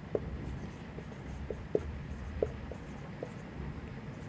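Marker pen writing on a whiteboard: a run of light, irregular taps and soft scratches from the tip as words are written.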